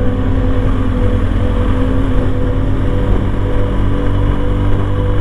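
BMW R1200GS Adventure's boxer-twin engine running steadily at cruising speed over a mountain pass, mixed with wind noise and heard through a microphone inside the rider's helmet.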